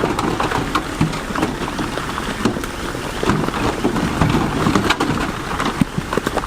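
Stone being moved by heavy diesel earthmoving machinery: many irregular knocks and clatters of rock over a steady low engine rumble.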